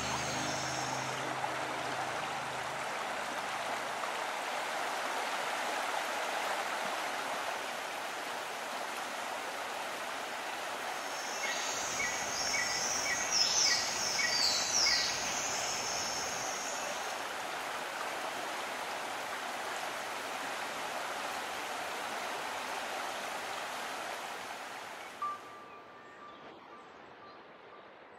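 A stream rushing in a steady, even flow of water. About halfway through, a small bird sings a short run of quick repeated notes and trills over it. The water fades out in the last few seconds.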